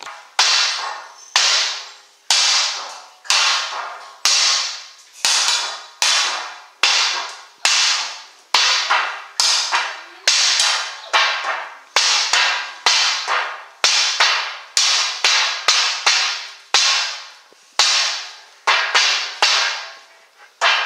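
A metal pan struck over and over, roughly once a second and a little faster in the second half, each hit ringing out bright and fading before the next.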